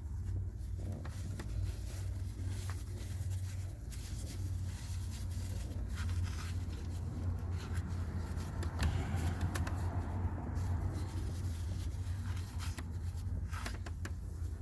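A steady low mechanical hum with scattered light clicks and scrapes over it.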